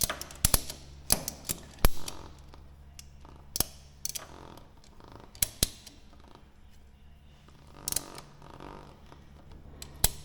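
Trailer ratchet tie-down strap being cranked to stretch an aircraft undercarriage bungee cord, its pawl giving sharp single and paired clicks at uneven gaps, with some scraping between strokes.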